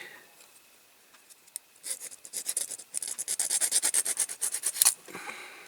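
Small hand file rasping on the end of a die-cast toy car's axle in quick, short back-and-forth strokes, filing the axle down to free a glued-on wheel. The strokes start about two seconds in and stop about a second before the end.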